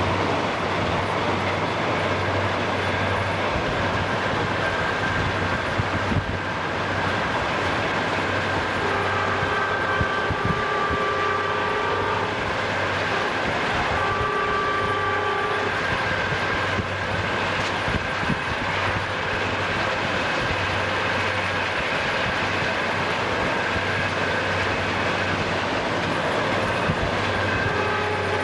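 Diesel freight locomotive's air horn sounding a long chord about nine seconds in, a shorter one about fourteen seconds in, and another starting just before the end. Between the blasts is the steady rumble of the moving train.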